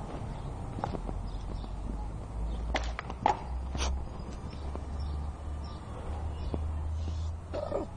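A person snoring, with low-pitched snores coming in stretches of a second or two. A few sharp clicks come a little before halfway through.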